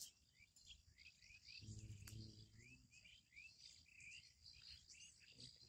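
Faint outdoor birdsong: short rising chirps repeated two or three times a second over a steady high-pitched insect drone. A brief low hum sounds about two seconds in.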